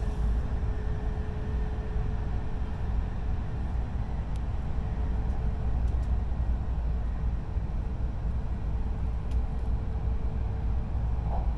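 Steady low rumble of a Shinkansen train running at speed, heard inside the passenger car, with a faint steady hum over it.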